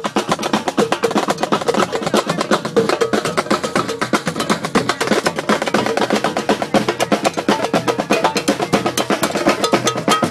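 A live street band playing, led by drums beating a fast, busy snare and bass drum rhythm.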